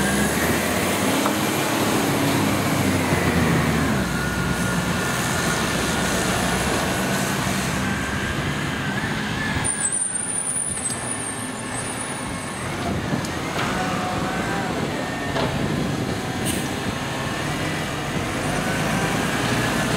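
Diesel engine of a side-loader garbage truck running as the truck moves slowly along the street, its pitch rising and falling with the throttle.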